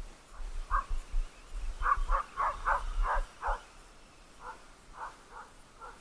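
A dog barking: a quick run of about six barks, then a few more spaced-out barks near the end.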